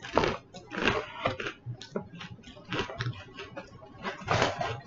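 Rustling and crinkling of takeout chicken-box packaging as the chicken pieces are handled, a run of short scratchy noises with a few sharper clicks.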